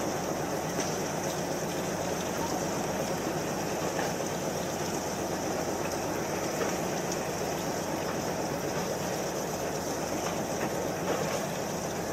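Steady mechanical drone of a fishing boat's engine running, with a continuous wash of noise.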